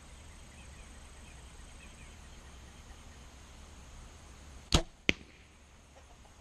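A compound bow shot: a sharp snap as the string is released, then about a third of a second later a second sharp crack as the arrow strikes the target.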